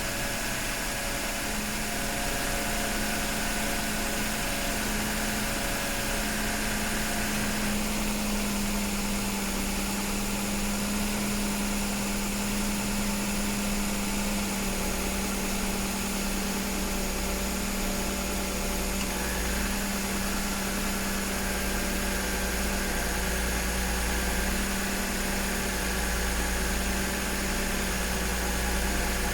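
Nissan Teana J32 idling with the air-conditioning compressor running: a steady mechanical drone with an extra noise from the compressor that the owner considers abnormal. Its main hum steps slightly in pitch a couple of times.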